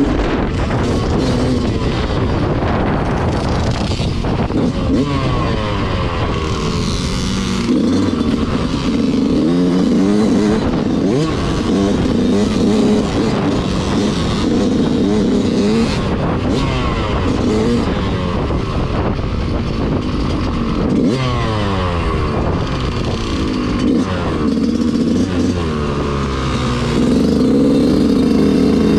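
Motorcycle engine running hard, its pitch rising and falling again and again as it revs up, shifts and backs off, typical of a dirt bike being ridden around.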